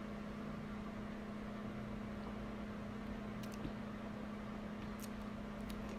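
Steady low electrical hum over a faint, even hiss, with a few faint ticks.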